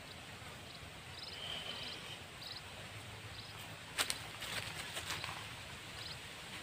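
Outdoor ambience with a short, high chirp repeating every half second to a second, and a cluster of sharp clicks about four to five seconds in.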